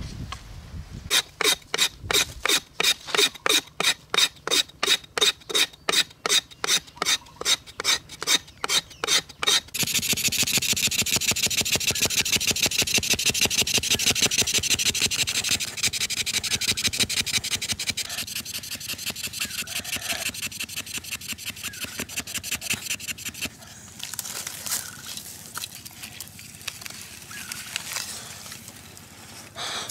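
Friction fire-lighting with a fire plough: a wooden stick rubbed back and forth along a groove in a split bamboo board, with a dry, rasping scrape on each stroke. Steady strokes of about three a second speed up about ten seconds in into a fast, continuous rubbing for about five seconds, working up heat to make an ember, then slow and fade.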